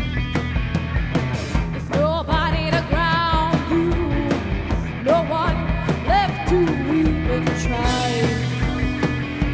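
Live rock band playing: a woman sings long, wavering notes over electric guitars and a steady drum beat.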